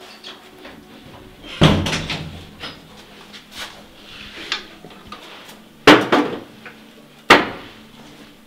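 Wooden doors being handled and swung: three loud bangs, one about two seconds in and two close together near the end, with lighter clicks and knocks of handles and latches between them.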